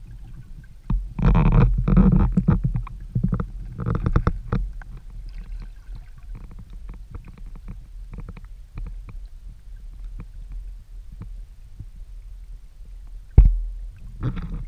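Muffled underwater sound picked up through a submerged camera housing: low rumbling water movement with scattered small clicks, louder rushes about a second in and again around four seconds, and one sharp knock near the end.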